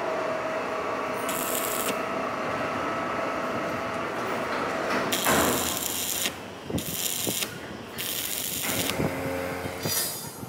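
Heavy metalworking machinery running with a steady mechanical rattling and clicking. Several short bursts of hissing noise break in, about a second in and then repeatedly from about five seconds on.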